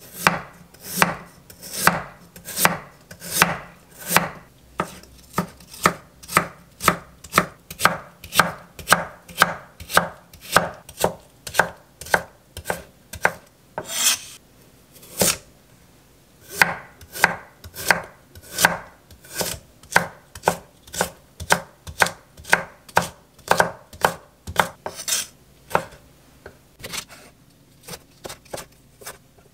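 Chef's knife chopping on an end-grain wooden cutting board, slicing and julienning raw potato and carrot: steady sharp knocks of the blade on the wood, about two a second, with a brief pause around the middle. Near the end the cuts turn lighter and quicker as the knife goes through a green chili.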